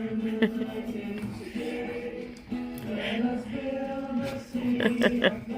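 Background music with singing: slow, long-held sung notes.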